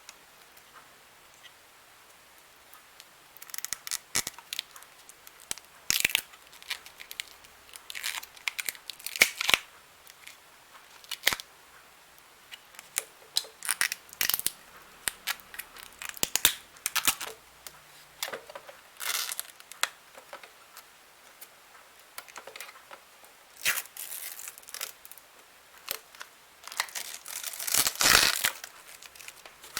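Graphics card packaging being unpacked by hand: irregular crinkling, rustling and tearing of plastic and cardboard. It starts a few seconds in and is loudest near the end.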